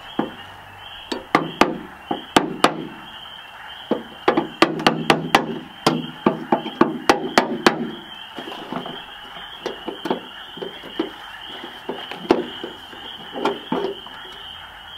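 Hammer driving a screwdriver or punch to knock the third brake light loose from a Honda S2000 trunk lid: quick runs of sharp taps for the first eight seconds or so, then lighter, scattered knocks. A steady high chorus of frogs runs behind.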